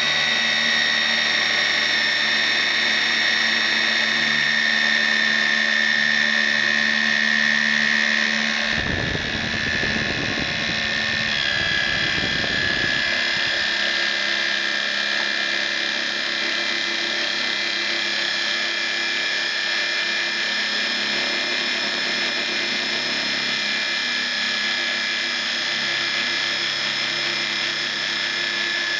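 CNC machine running with a steady high whine of motors and spindle. About nine seconds in, a rough low rattling buzz sets in for some four seconds, then the whine carries on at a slightly changed pitch.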